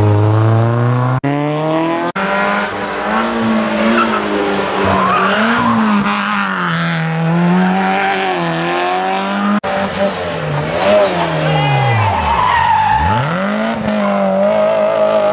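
Rally car engines revving hard through a tight tarmac hairpin. The engine note sinks as the driver brakes and lifts, then climbs again on acceleration, with some tyre squeal. The sound cuts abruptly from one car to the next a few times.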